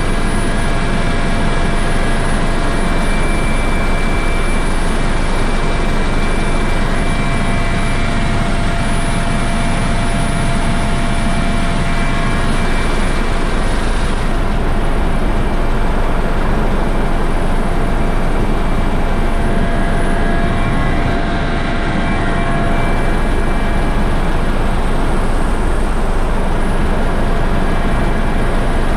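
Helicopter in flight heard from inside the cabin with the side door open: the turbine engines and rotor running steadily as a dense, loud roar with a thin steady whine.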